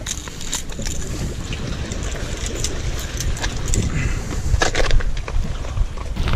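Scattered metallic clicks and rustles as a hooked Atlantic bonito is unhooked with pliers and handled on the rocks, over a steady low rumble of wind and water.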